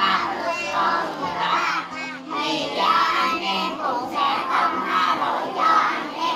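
A congregation reading a Gospel passage aloud together in unison. Many voices chant in a sing-song chorus, phrase after phrase.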